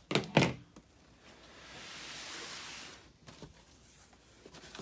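Cardboard shipping box being opened by hand: a couple of sharp knocks near the start, then a hiss that swells and fades over about a second and a half as the box is pulled at, and a few light taps near the end.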